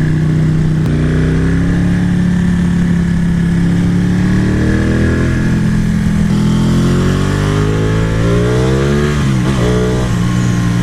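Ducati 1199 Panigale's V-twin engine under way, its note climbing as it accelerates, dropping sharply about six seconds in at a gear change, climbing again, then dipping and wavering briefly near nine seconds before holding steady.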